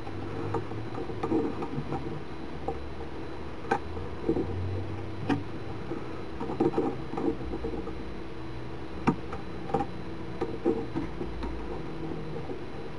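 Irregular small clicks and taps of a metal loom pick and fingers against the plastic pegs of a knitting loom as loops are lifted over and knitted off, over a steady low hum.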